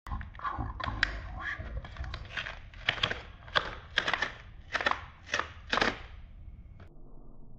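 A strip of paper torn off a card in a series of short rips and rustles, ending about six seconds in.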